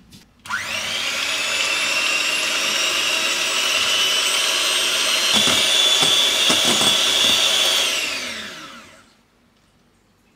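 Electric hand mixer whipping cream and sugar in a glass bowl toward near-stiff peaks. The motor starts suddenly and runs with a steady whine that goes up a little in pitch about halfway, with a few knocks. Near the end it winds down with falling pitch.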